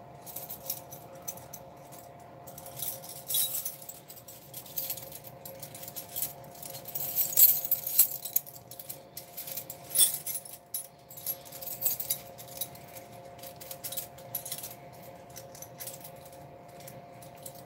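Small metal hand tools clinking and rattling in irregular runs of sharp clicks, busiest around the middle, as someone sorts through them for a 7 mm nut driver. A faint steady hum lies underneath.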